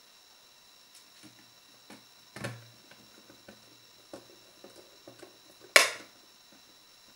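Small scattered clicks and taps of a precision Phillips screwdriver and tiny screws being driven into a Garmin nüvi 250 GPS's circuit board, with a knock about two and a half seconds in and a sharp click near the end.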